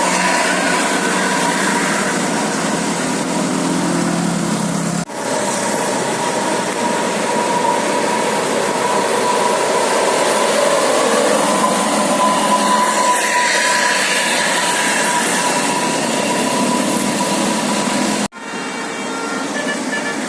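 A large bus running past with steady engine and road noise, under a steady high tone. The sound breaks off abruptly twice: about five seconds in and near the end.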